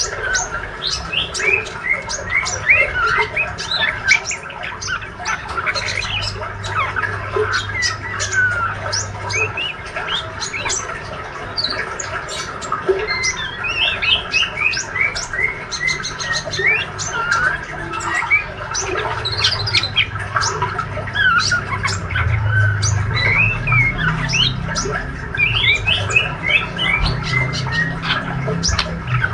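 Young male white-rumped shama in spotted juvenile plumage giving its rambling practice subsong (ngriwik): a continuous run of rapid chirps, clicks and down-slurred whistles.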